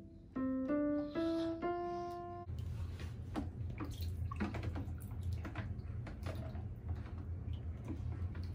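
An electronic keyboard plays a short run of four notes stepping upward. About two and a half seconds in it cuts to water sloshing and splashing in a plastic basin as hands move a baby doll through it, with a steady low hum underneath.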